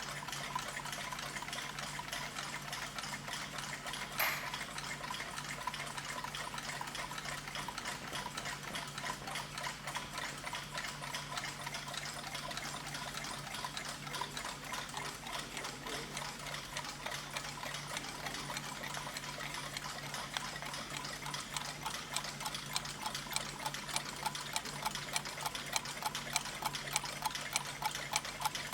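Many clocks ticking at once, a dense overlapping patter of ticks over a steady low hum. A single sharper click about four seconds in; near the end one clock's tick stands out at about two beats a second.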